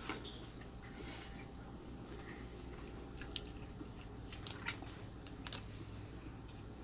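Faint wet chewing and mouth sounds of a person eating, with a few short sharp clicks scattered through.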